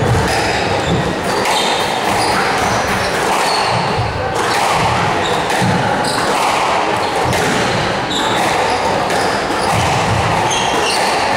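Squash rally: irregular sharp knocks of the ball off the rackets and the court walls, with the players' footwork on the wooden floor.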